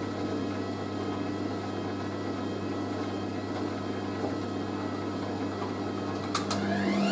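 Hoover A3060 Electronic 1100 washing machine running with a steady hum. About six seconds in, a couple of clicks come before its motor whine rises steeply in pitch as the drum speeds up into a spin.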